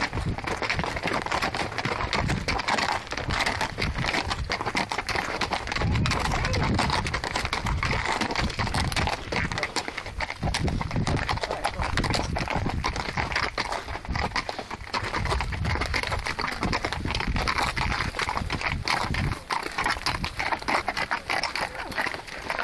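Horse hooves clip-clopping steadily as horses walk on a trail, with a low rumble coming and going.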